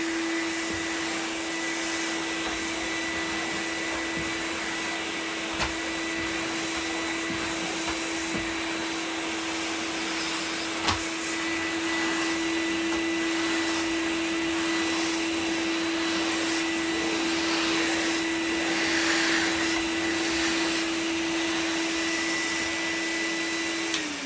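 MAXVAX vacuum cleaner, with its Numatic-supplied motor, running steadily with a constant motor whine and airflow rush, with a couple of sharp clicks along the way. Near the end it is switched off and the whine falls in pitch as the motor runs down.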